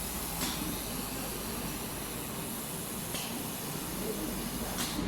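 Laser welding machine running a weld: a steady hiss over a low hum, with three short, sharper hissing bursts about half a second, three seconds and nearly five seconds in.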